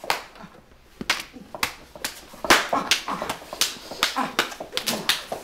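A quick run of a dozen or so sharp crop strokes and slaps on the body, mixed with yelping, whimpering voices.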